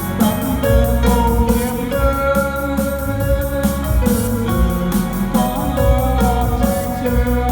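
Background music with a steady beat: pitched instruments and possibly a voice over drums.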